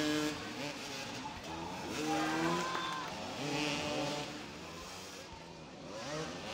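Several motoball motorcycle engines revving up and down at once as the riders manoeuvre around the ball, their pitches rising and falling over one another.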